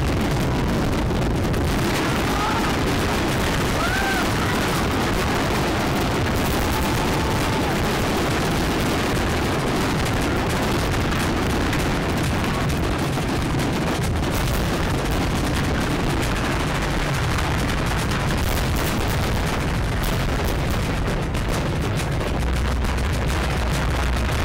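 Aerial fireworks bursting in a dense, continuous barrage of bangs and crackles.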